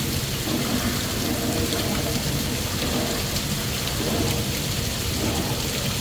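Steady patter of falling water drops over a continuous low rumble.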